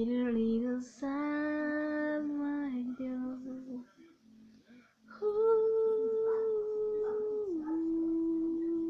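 A girl's voice singing long held notes. The last note is held for several seconds and steps down in pitch partway through.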